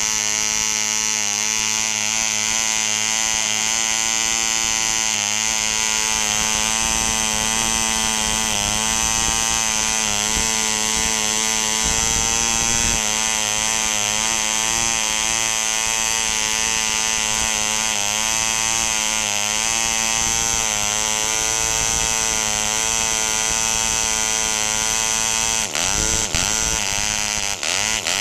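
1960 M.E. Heron 1cc model aircraft diesel engine running flat out on a test stand, turning an 8x6 Keilkraft propeller: a steady, high-pitched buzz with a slight waver. Near the end the running turns uneven, the note dipping and stuttering, while the compression screw on top of the engine is being turned.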